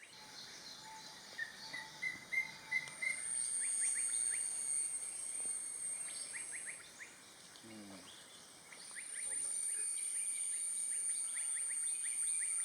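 Tropical forest ambience: a steady high-pitched insect drone that comes in twice, a short run of about six repeated bird notes near the start, and several clusters of quick taps.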